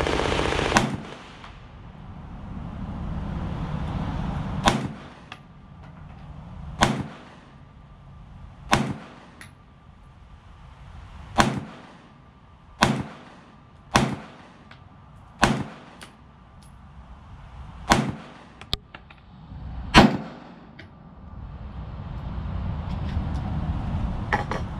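SIG P365 micro-compact 9mm pistol fired slowly, about ten shots spaced one to three seconds apart. A steady rushing noise runs at the start and again near the end.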